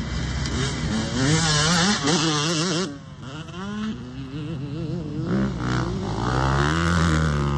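Motocross dirt bike engines revving on the track, the pitch rising and falling as the throttle is worked. The sound drops away about three seconds in, then another bike comes up and holds a steadier note near the end.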